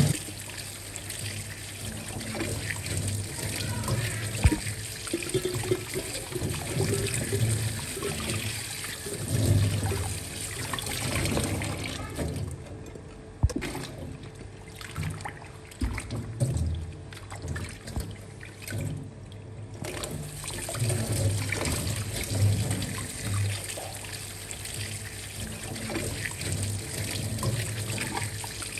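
Liquid trickling and splashing: dark sweet-and-sour pickling brine, stirred with a ladle in a steel pot and poured into a glass jar of striped cucumber pieces and chillies.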